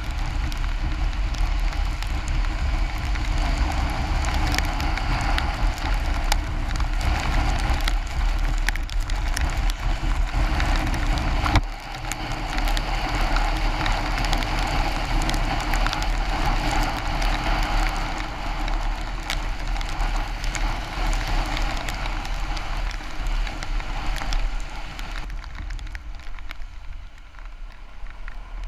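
Wind rumble and rain spattering on the microphone of a scooter riding through heavy rain, with wet-road hiss. There is a brief break about twelve seconds in, and it grows quieter near the end.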